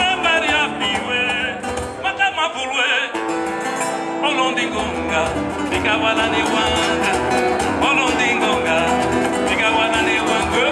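Live acoustic band: a male voice sings a wavering, ornamented melody over plucked and strummed acoustic guitars. Deeper bass notes fill in about halfway through.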